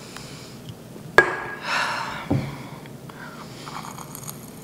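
An aluminium beer can set down on a table with a sharp clack about a second in, then a short rustle and a dull thump as the beer glass is handled. Near the end come quiet sips of beer with a faint fizz of foam.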